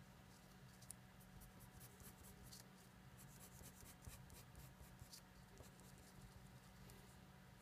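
Faint scratching of a felt-tip marker on paper, in many quick, short strokes as an area is hatched in.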